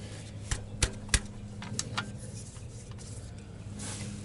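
A few sharp metal clicks and clinks from a ratchet and 17 mm socket being worked on an engine oil drain plug, mostly in the first second or so; the plug is stuck tight and does not turn.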